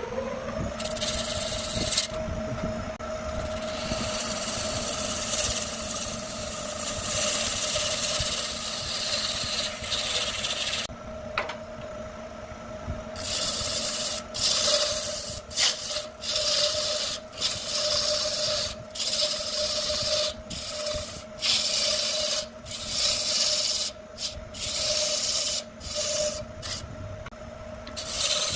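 Wood lathe motor coming up to speed at the very start, then running with a steady hum while a hand turning tool cuts into the spinning log, shavings hissing off. The cut is continuous for about the first ten seconds, then turns into a series of short cuts about once a second as grooves are turned into the wood.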